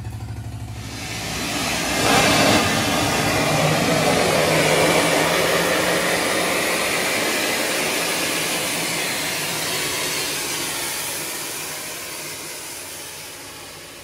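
Pressurised steam from an electric steam boiler blasting out through an opened ball valve with a loud, steady hiss. This is a blowdown, which flushes rust, scale and sediment out of the boiler. The hiss surges in about a second in and fades away over the last few seconds.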